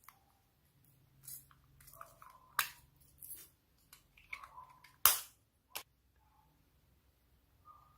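Homemade slime being worked by hand: soft sticky squishing broken by a few sharp pops, the loudest about five seconds in.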